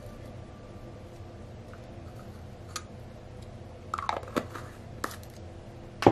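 A few small clicks and taps from a plastic lotion bottle being handled and squeezed. There is a cluster of them about four seconds in and the loudest, sharpest click near the end.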